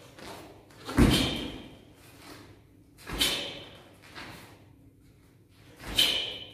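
Taekwon-Do pattern moves: three sharp snaps about two seconds apart, each a short swish of the uniform and breath ending in a crack as a block or strike is finished, the first with a low thud of a foot setting down on the mat.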